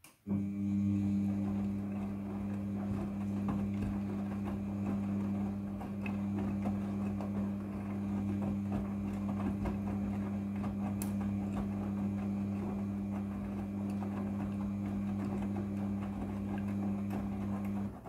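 Midea front-loading washing machine turning its drum in the wash cycle. The motor starts abruptly and runs with a steady hum while the wet clothes tumble and slosh, then it stops near the end as the drum pauses between turns.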